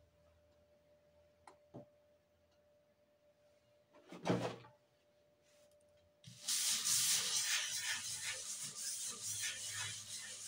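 A stiff-bristled round wooden brush scrubbed back and forth over the back of a sheet of paper to take a print off an inked wax block: a continuous scratchy rubbing that starts about six seconds in. A single thump comes about four seconds in.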